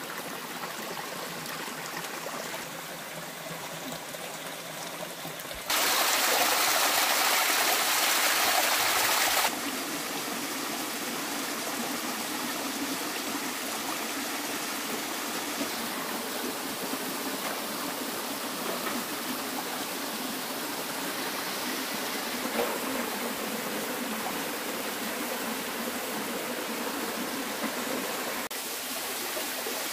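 Shallow rocky forest stream running, a steady rush of water that turns much louder for about four seconds from about six seconds in, then steadies again.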